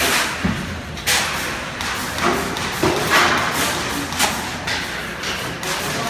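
Shovel scraping through wet plaster mortar on the floor and tossing it. There are repeated scrapes and thuds, about one a second.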